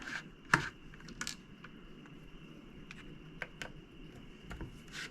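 A few scattered light clicks and taps, a second or so apart, over a faint steady background hum.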